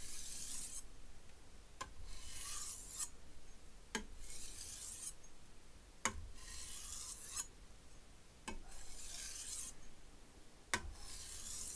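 A knife blade stropped across a whetstone in alternating single strokes, one side then the other: about six soft rasping swipes roughly two seconds apart, each begun with a light click as the blade is set on the stone. These are final stropping strokes that take the burr off the edge.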